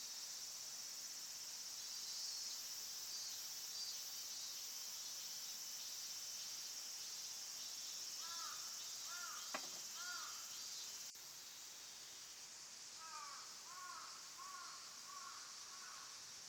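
Steady high-pitched chorus of insects, with a bird calling in two short series of repeated arched notes, and a brief click about halfway through.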